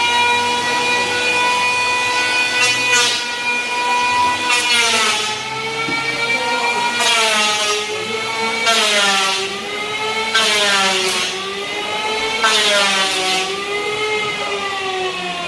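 Handheld electric power tool cutting wood: a steady high motor whine that sags in pitch under load on each of about five cutting passes, each pass adding a rasping noise of the blade in the wood.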